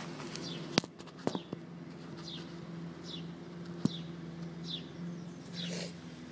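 BMX rear freewheel hub of a Mongoose Mode 540 with its 9-tooth driver: the wheel turning makes only a few sharp clicks, showing the hub is quiet. A short, falling, high chirp repeats about every 0.8 s over a faint steady hum.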